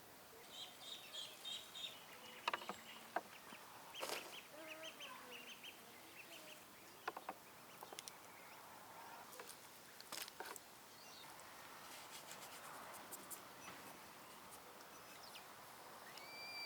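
Faint bird calls, short chirps repeated in small runs, with a few sharp clicks and knocks scattered through.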